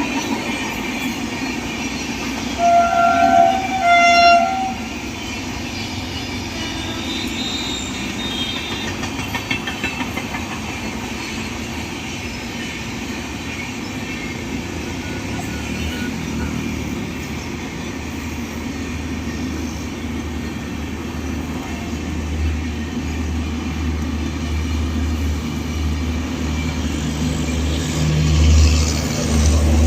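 Train horn sounding two short blasts, then the steady running noise of a passing train on the track. A deep rumble builds and grows louder toward the end.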